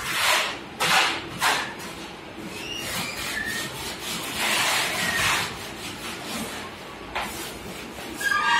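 Steel putty blade scraping wall putty across a plastered wall in a series of strokes: three short ones in the first second and a half, a longer stroke around four to five seconds in, and a short scrape near the end.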